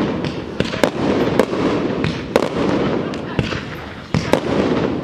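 Aerial fireworks display: about eight sharp bangs from bursting shells, irregularly spaced, over a continuous dense hiss and rumble between them.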